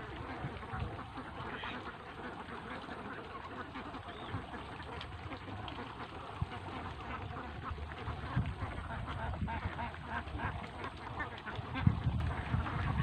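A flock of five-month-old itik (Philippine laying ducks) quacking and chattering without pause, with a few low rumbling bursts near the start and near the end.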